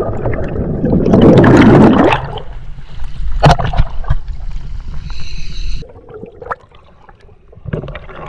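Scuba divers' backward-roll entry into the sea: a loud splash about half a second in, then the muffled rushing and bubbling of going under, which dies down to quieter underwater sound after about six seconds.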